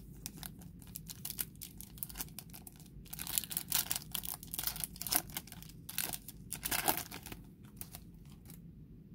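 Foil wrapper of a Topps trading card pack crinkling in the hands and being torn open, with the loudest run of crackling and tearing from about three to seven seconds in.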